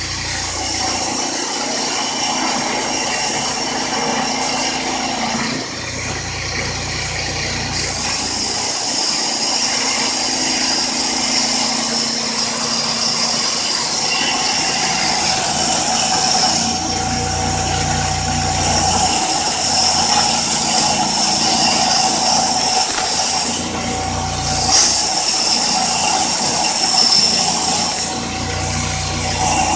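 Bench grinder running, its grinding wheel taking a large weld bead off a metal piece in three passes: several seconds of loud, harsh grinding each time, with the motor's steady hum between passes.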